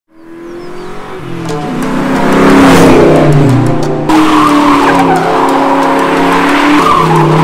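Electronic music fading in over the first two to three seconds. About four seconds in, tire squeal from a car doing a burnout joins under the music.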